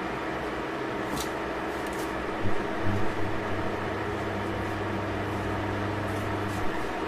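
Eggs cooking on the stove in a stainless steel pan: a steady hiss with a faint hum. A deeper hum joins about three seconds in and stops a few seconds later, and there are a few faint clicks.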